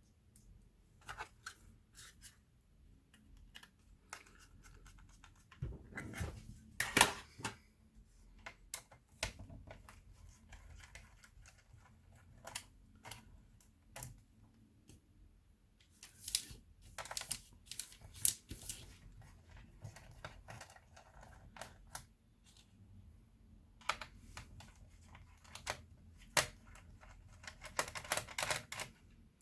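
Irregular light clicks, taps and short scrapes of an Asus X54C laptop's plastic case parts and screws being handled with small tools during disassembly. The loudest cluster of clicks comes about seven seconds in.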